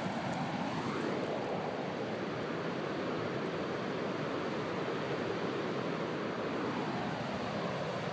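Ocean surf breaking on the beach, heard as a steady rushing noise, mixed with wind.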